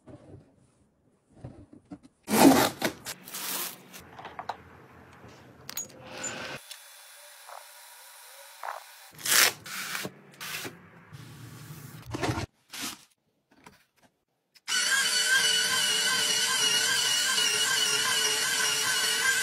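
Scattered clicks, knocks and rubbing from plastic household organisers and a mat being handled. About fifteen seconds in, an electric apple peeler starts up: its small motor runs steadily with a slightly wavering whine as it turns the apple against the paring blade.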